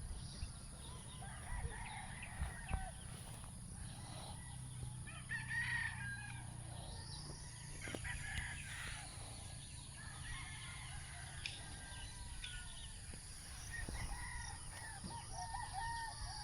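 Chickens calling and a rooster crowing, fairly faint, with short clucks scattered throughout.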